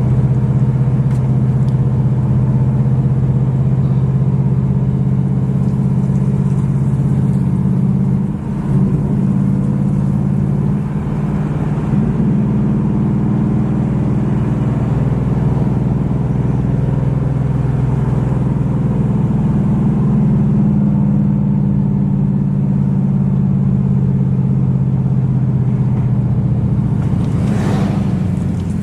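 Ford Mustang GT's V8 engine and air intake running at a steady cruise under way, a low, even drone with a brief drop and surge about eight seconds in. A short rushing sound passes near the end.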